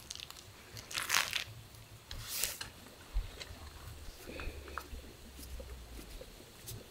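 Paper towels and a plastic bag rustling and crinkling as gloved hands press and pat them onto a raw steak to blot it dry, with two louder rustles about one and two and a half seconds in and softer crinkles between.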